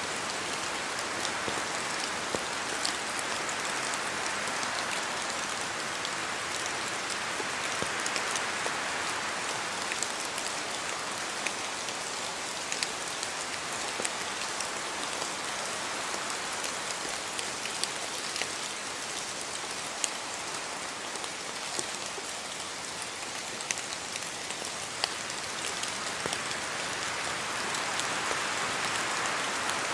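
Steady rain in a forest: a constant hiss, with many separate drops pattering down from the trees. It swells gently now and then.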